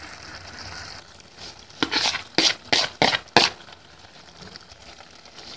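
Sugar being knocked and scraped off a plate into a pan of simmering tomato purée: about six quick scraping taps in a row, around two to three seconds in. A faint hiss of the simmering sauce is heard at the start.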